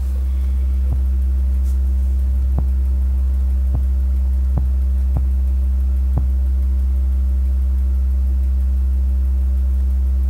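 LG SN11RG subwoofer playing a steady low test tone of about 65 Hz, broken by six sharp, irregularly spaced pops over the first six seconds or so. The popping or clipping is the fault the owner says is still there at any frequency.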